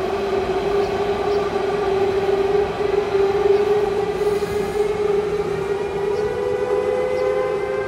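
Siemens Vectron electric locomotive pulling away from a standstill, its traction converters giving the typical starting whine: a steady strong tone with a set of higher tones slowly rising in pitch as the train gains speed.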